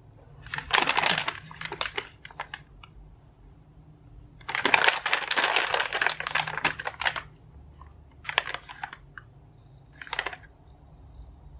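Plastic bath-ball packets crinkling as hands squeeze and turn them over, in bursts: two long ones, about a second in and from about four and a half to seven seconds, then two short ones near the end.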